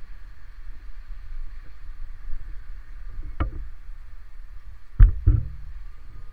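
Three sharp knocks over a low, uneven rumble: one about three and a half seconds in, then a louder pair close together about five seconds in.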